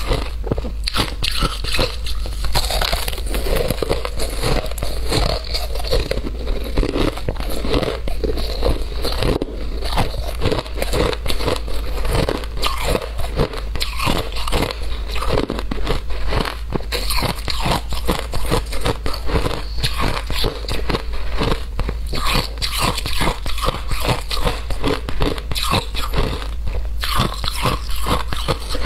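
Shaved ice being bitten and chewed: a continuous run of sharp, crisp crunches in quick succession as chunks of frozen ice break between the teeth.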